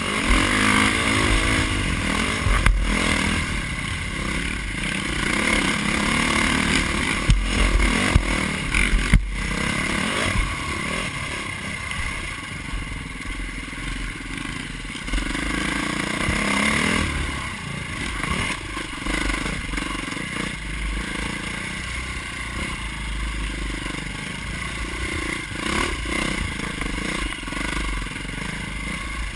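Dirt bike engine running on a rough trail ride, its pitch rising and falling as the throttle opens and closes. A few sharp knocks and rattles come through, mostly around eight or nine seconds in.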